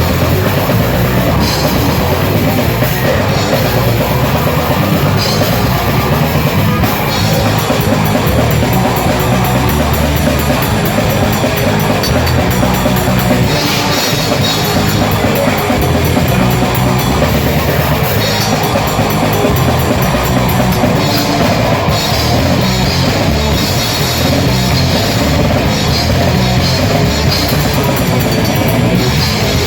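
Grindcore band playing live: heavily distorted guitars and bass over fast, relentless drumming with rapid cymbal hits, loud and unbroken.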